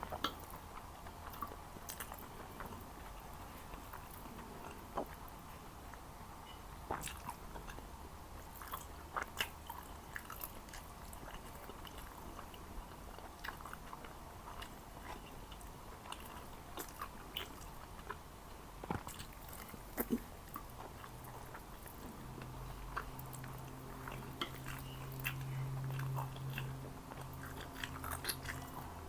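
Close-miked chewing and biting of Jordanian mansaf (lamb and rice in yogurt sauce), with many scattered sharp mouth clicks. A low hum comes in for the last several seconds.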